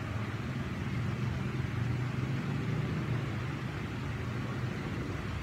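Steady low background rumble with a faint hiss, holding even throughout, with no distinct events.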